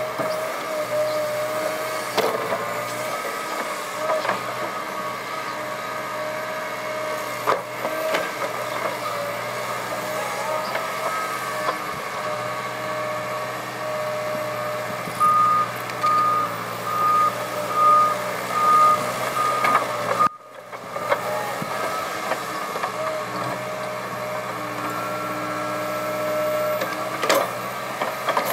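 Liebherr R 906 crawler excavator working soil: the diesel engine runs steadily with a high hydraulic whine, and a few knocks sound as the bucket works. Midway, a reversing-type warning alarm beeps about six times at an even pace.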